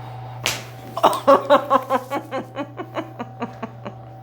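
A sudden sharp crack about half a second in as the chiropractic adjustment is delivered, then a patient's burst of rhythmic laughter, about five pulses a second, loudest at first and fading over about three seconds.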